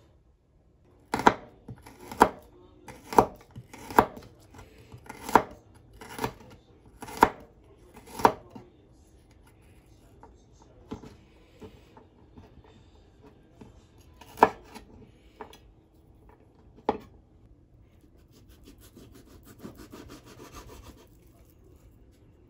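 Kitchen knife slicing garlic cloves on a wooden cutting board: sharp knocks about once a second for the first several seconds, then a few more spread out. Near the end, a soft rasping as the knife saws through a block of pork belly.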